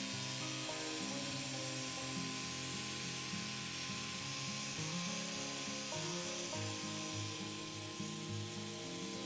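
Background music: held notes that step from pitch to pitch, over a steady hiss.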